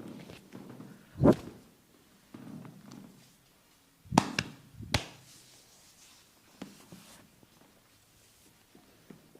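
Percussive massage strikes on the body, sharp slaps or thuds. There is one strike about a second in, three quick ones around four to five seconds in, then two lighter taps.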